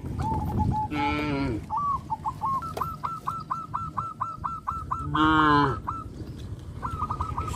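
Cattle mooing twice, each a short call falling in pitch, about a second in and again about five seconds in. In between, a bird calls in a quick run of short chirps.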